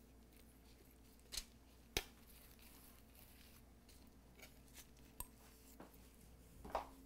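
Near silence, broken by a few short faint clicks of a spoon against a small glass bowl as a paste is scooped out, the clearest about one and a half and two seconds in.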